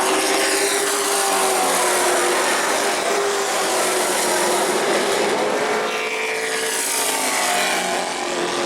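Race truck engines running on a paved short track, several engine notes holding steady, with a few sweeping up and down as trucks pass.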